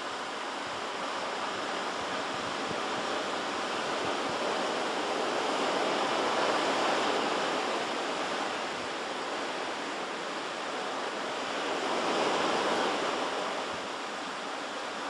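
Pacific surf washing on the shore, a continuous rushing noise that swells about six seconds in and again about twelve seconds in.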